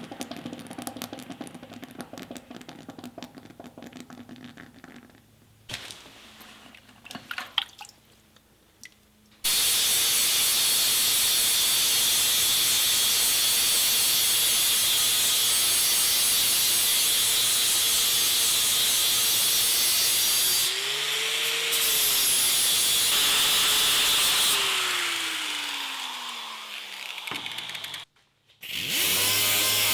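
Electric power tool cutting through a hardened steel transfer case shaft, with a high-pitched grinding noise. It starts suddenly about nine seconds in and runs loud and steady, its motor pitch dipping and recovering once. Near the end the pitch falls as the motor winds down, it stops briefly, then it starts up again.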